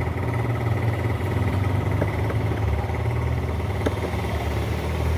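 A steady low mechanical hum, like an idling engine, runs throughout. Over it come a few faint clicks, about two seconds in and again near four seconds, from a screwdriver working at the plastic switch housing of the hair clipper.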